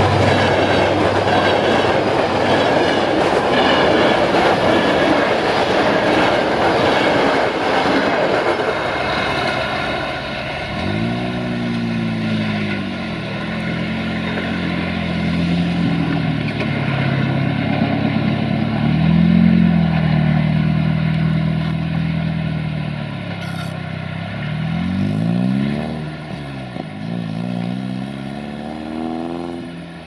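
Passenger coaches rolling past close by, with a dense rushing noise and wheels clattering over rail joints, fading about ten seconds in. Then a train pulls away, with a low droning note that slides up and down in pitch several times.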